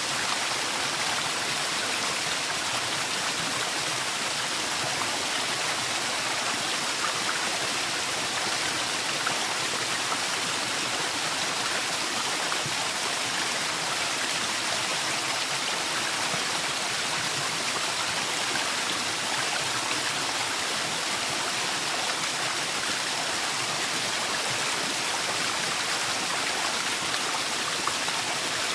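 Forest waterfall, water falling and rushing in a steady, even roar of splashing.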